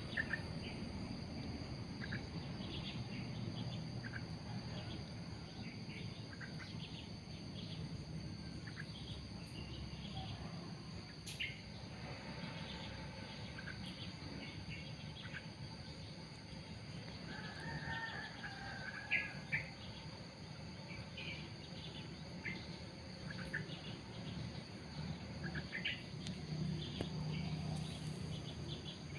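Outdoor ambience: insects trilling steadily on several high notes, with scattered short bird chirps and a steady low rumble underneath. A single sharp click about eleven seconds in.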